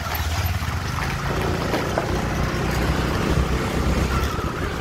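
Motorbike engine running steadily while riding, with wind rushing over the microphone.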